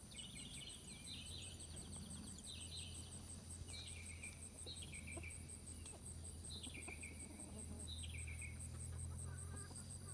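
An insect, cricket-like, calling with a steady, rapidly pulsing high trill, while a bird repeats short falling chirps about once a second. A faint low hum lies underneath.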